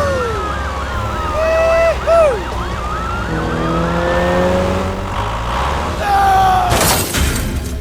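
Sirens wailing in fast overlapping up-and-down sweeps over a steady low hum, with sliding pitched squeals and a rising tone in the middle. A short, loud burst of noise comes near the end.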